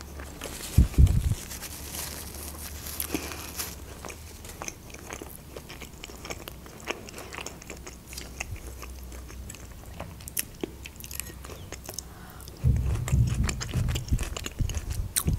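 A person chewing a mouthful of food with closed lips, picked up close to the microphone: a steady run of small mouth clicks and smacks. Dull thumps come about a second in and again for a couple of seconds near the end.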